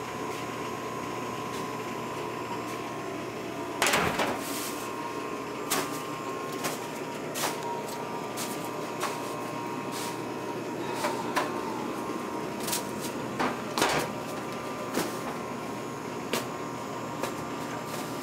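Steady hum of kitchen equipment with a faint steady tone, broken by scattered knocks and clatter of a metal sheet pan of pastries being handled on a stainless-steel counter. The loudest knocks come about four seconds in and again about ten seconds later.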